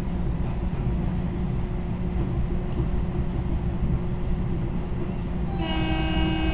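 Steady rumble of a commuter train car running at speed, heard from inside the car. About five and a half seconds in, the train's horn starts to blow, a held chord of several tones that the riders liken to a sick goose.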